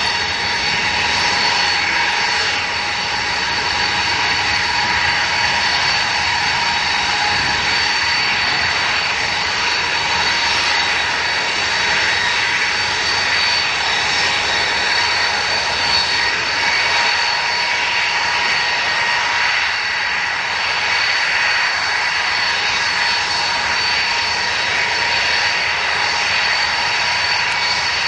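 Ilyushin Il-76's four turbofan engines running at low power as the aircraft taxis, a steady jet rumble with high whistling whine tones held throughout.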